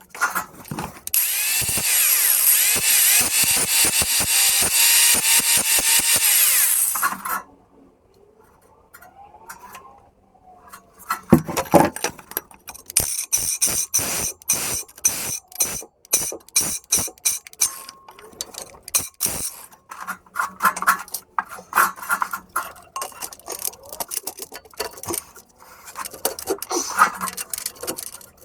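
A power tool grinding or cutting metal for about six seconds, a steady, loud, high-pitched noise, as old welds on an exhaust pipe are taken off. After a short pause come many metallic clicks, knocks and scrapes of hand work on the exhaust.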